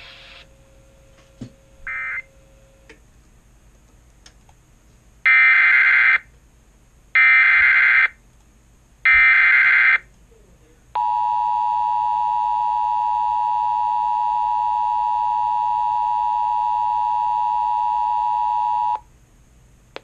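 Emergency Alert System header sent by a TFT EAS 911 encoder: three short bursts of SAME digital data tones, each just under a second, about two seconds apart. Then the EAS two-tone attention signal (853 and 960 Hz together) holds steady for about eight seconds and cuts off sharply. Together they mark the start of a relayed alert.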